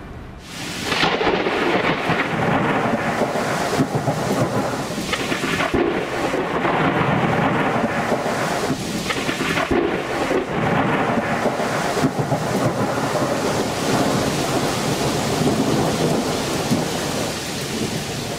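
Thunderstorm: a steady wash of heavy rain with rolling thunder that swells several times, fading out near the end.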